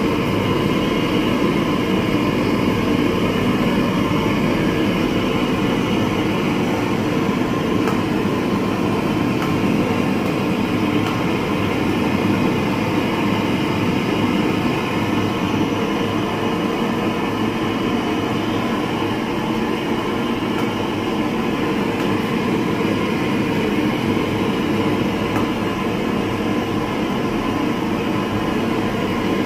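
Steady rushing of a gas stove burner running under a large wok of simmering curry, unchanging in level.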